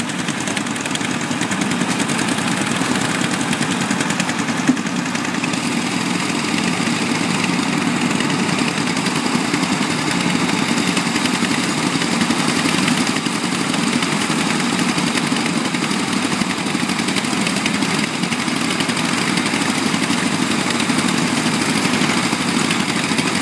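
Small engines of portable concrete mixers running steadily, the drums turning as concrete is mixed and tipped out, a constant even engine beat without let-up.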